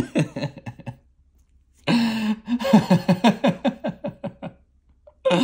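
A man laughing in two bursts: a short trailing laugh at the start, then after a brief pause a longer run of quick, rhythmic laughs.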